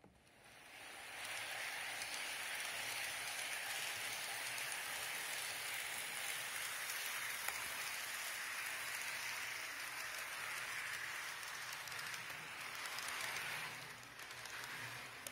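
TT-scale model ETR 610 train running along its track: a steady rushing rattle of wheels and motor. It swells in over the first second and falls off near the end.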